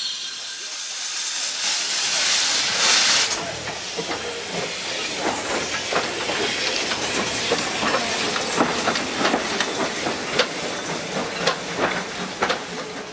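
Andrew Barclay 0-4-0 saddle-tank steam locomotive letting off steam with a loud hiss that peaks about three seconds in, then moving along the track with a run of irregular sharp clicks and clanks from its wheels and motion.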